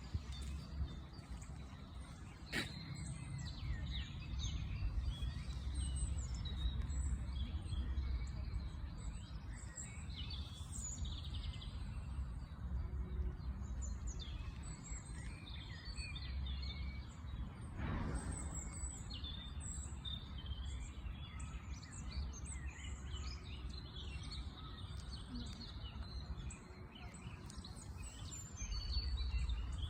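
Small birds chirping and singing, many short high calls, over a steady low rumble. A sharp click about two and a half seconds in and a short noisy burst about eighteen seconds in.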